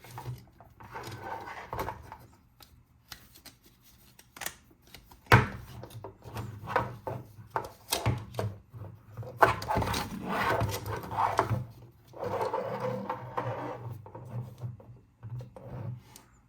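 Hands handling toy packaging for an unboxing: repeated rubbing and scraping against cardboard and plastic, broken by scattered sharp clicks and taps, in uneven bursts with short pauses.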